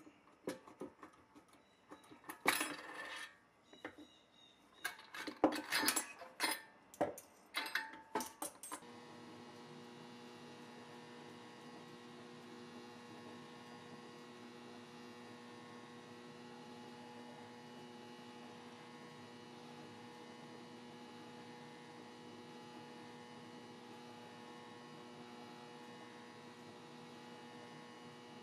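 Steel and plastic toy-truck trailer parts clicking and clattering as they are handled on a wooden bench, a quick run of sharp knocks over the first nine seconds. Then a sudden switch to a steady electrical hum with several constant tones, as an Eastwood HotCoat PCS-1000 powder coating gun sprays powder onto parts in a coating booth.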